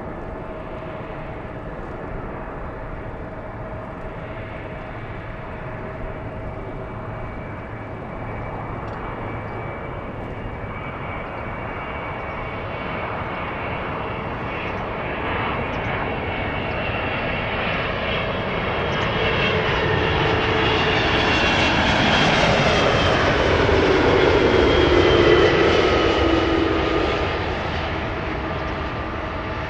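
Boeing 777-200 airliner on landing approach, the jet noise of its twin engines growing steadily louder as it nears. It is loudest about 25 seconds in as it passes close by, with whining tones falling in pitch as it goes past, then easing off.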